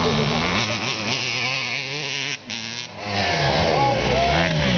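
Motorcycle engine revving, its pitch rising and falling, with a short drop-out about two and a half seconds in.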